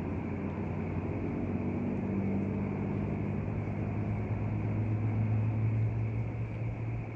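A low, steady motor hum with a few even tones, swelling slightly toward the end and then easing off.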